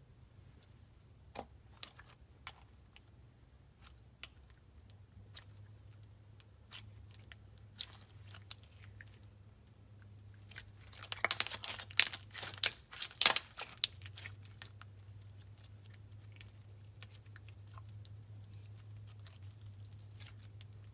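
Glossy, thick slime being squished and stretched by hand, giving scattered sticky clicks and pops that bunch into a louder run of crackling a little past halfway.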